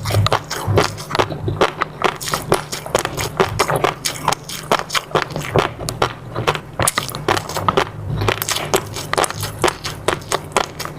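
Close-miked eating: chewing and biting with a rapid, irregular run of small crackling pops and wet clicks.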